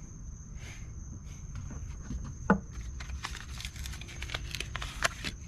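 Scattered clicks and light taps of small plastic parts being handled: a tail-light bulb and its socket. The loudest is a single sharp knock about two and a half seconds in, followed by a run of quicker clicks. A thin steady high tone and a low rumble sit underneath.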